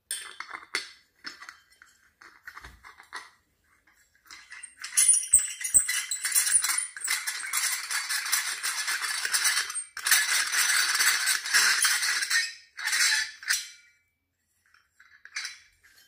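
Metal brackets of a small car stand clinking and rattling as they are handled and fitted together: a few short clinks at first, then continuous rattling and scraping from about five seconds in, stopping near the end.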